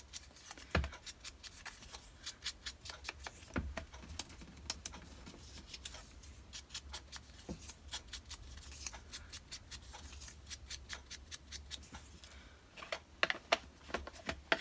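Rapid light tapping and rubbing as a foam ink blending tool dabs on an ink pad and against the edge of a small paper label, with a cluster of louder clicks near the end as the plastic ink pad case is handled and closed.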